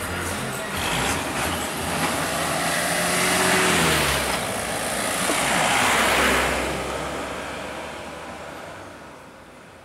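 Road vehicles driving past close by one after another, a pickup truck among them. Engine and tyre noise swells to a peak about three and a half seconds in, where an engine note drops in pitch, swells again around six seconds, then fades away.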